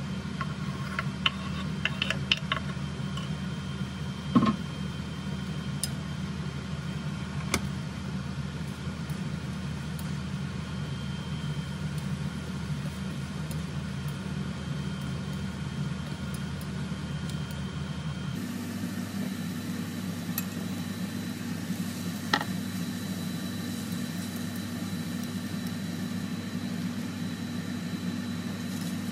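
Chopsticks stirring beef, potato and tomato in a stainless steel skillet, giving a few sharp clicks against the pan, over a steady low mechanical kitchen hum. The hum is the loudest thing throughout; its pitch changes about two-thirds of the way through.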